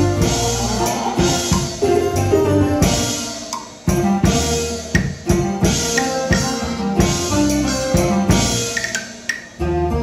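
Taiwanese opera stage band playing, with drum kit and percussion strokes under held melodic notes. Loud drum hits come about four seconds in and again near the end.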